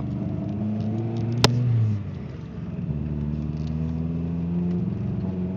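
Ford Escort ZX2's 2.0-litre four-cylinder engine running with a bad misfire while driving, with one sharp pop about a second and a half in. The revs rise, drop away about two seconds in, and climb again from about three seconds.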